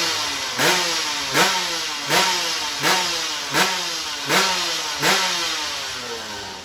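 Drag-racing motorcycle engine revved in short repeated blips at the start line, about one every three-quarters of a second, each jumping up in pitch and then falling away. The revs grow gradually quieter toward the end.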